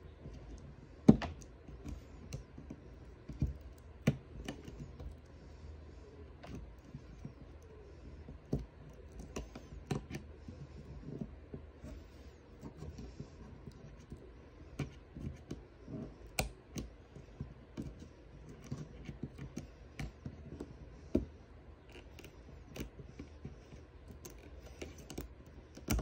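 Small hand tool clicking, tapping and scraping on the metal and plastic parts inside an opened iPhone 13: irregular light clicks, the sharpest about a second in.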